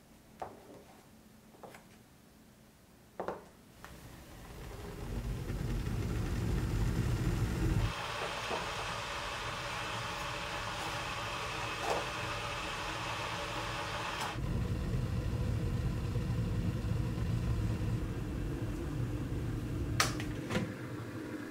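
Electric kettle heating water: a low rumble that builds over a few seconds, turns to a brighter hiss for several seconds, then rumbles again, with a sharp click near the end. A few light taps in the first seconds.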